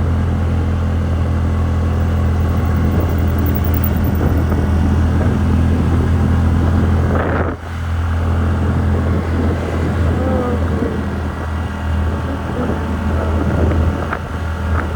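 TVS Ntorq 125 scooter's single-cylinder engine running steadily under way on a hill road, with a brief dip in loudness about halfway through.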